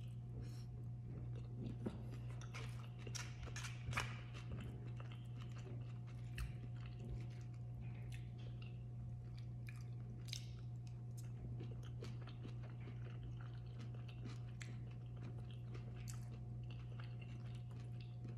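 Close-up chewing of a mouthful of rice bowl, with many small crunches and clicks.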